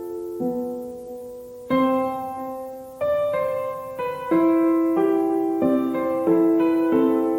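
Background piano music: slow, gentle notes and chords, each struck and left to ring away.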